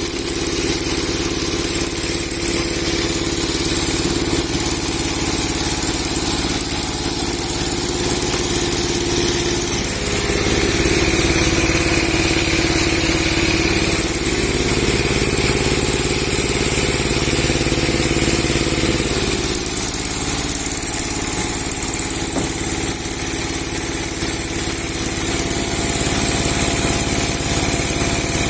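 A 30 hp log sawmill with a 60 cm steel blade, running steadily with a high whine over its engine. The pitch changes for several seconds in the middle.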